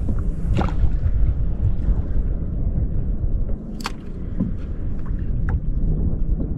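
Wind rumbling on the microphone, with a few light knocks against the kayak now and then, the sharpest about four seconds in.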